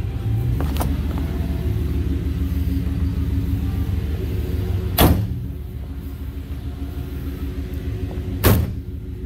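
The two rear panel doors of a 1989 GMC Suburban slammed shut one after the other, two heavy metal door slams about three and a half seconds apart, over a steady low rumble.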